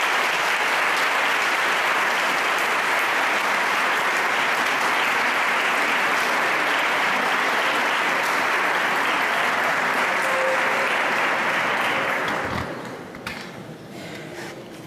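Audience applauding steadily, fading out about twelve seconds in.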